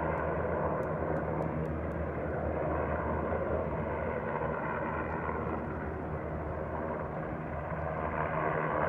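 Helicopter in flight: a steady drone of rotor and engine, growing a little louder near the end.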